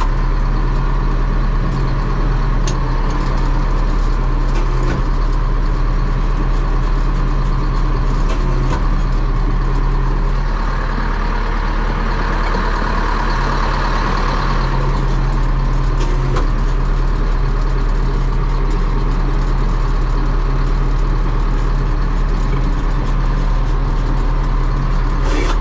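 DT-75 crawler tractor's diesel engine running steadily under load, heard from inside the cab while the dozer blade pushes soil, with occasional knocks. For a few seconds about halfway a harsher, higher sound rises over the engine.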